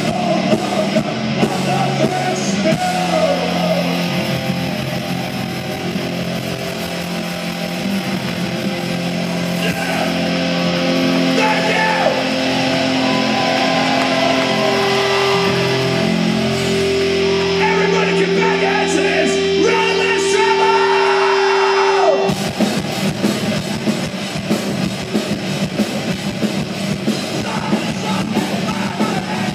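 Hardcore punk band playing live through a PA, heard from the crowd, with shouted vocals. Sustained, ringing guitar and bass notes carry the first twenty-odd seconds. About 22 seconds in, the full band with fast drums crashes in suddenly.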